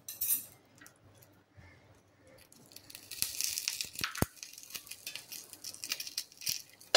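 Sizzling and crackling from a frying pan of chicken pieces with a small steel bowl of hot, smoking charcoal set among them, as the chicken is given a smoky charcoal finish. The crackling grows denser about two and a half seconds in, with one sharp click about four seconds in.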